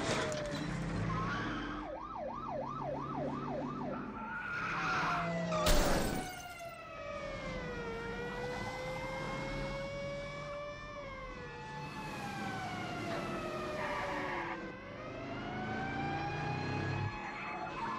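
Several police car sirens sounding together over car engines: a fast yelp about two seconds in, then overlapping slow wails rising and falling. A single loud crash about six seconds in.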